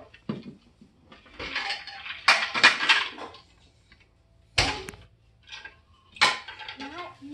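Hard plastic rings and base of a toddler's stacking-ring toy clattering and knocking together in several irregular bursts, the busiest a second or two in.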